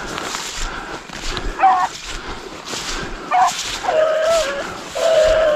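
Rabbit dogs giving tongue on a running rabbit: two short yelps, then two drawn-out bays near the end.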